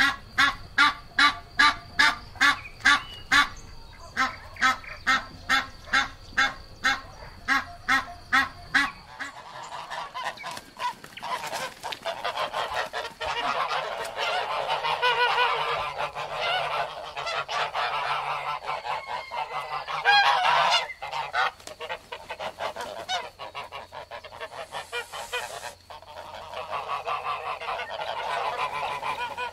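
Geese honking: first a regular run of short honks, about three a second, then from about nine seconds in many geese honking at once, their calls overlapping.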